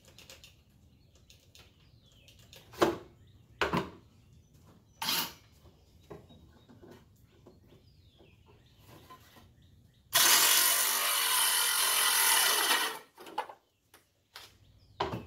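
A few sharp knocks, then a Bauer 20-volt cordless circular saw with a 24-tooth framing blade runs for about three seconds, cutting wood, starting and stopping abruptly; a few light clicks follow.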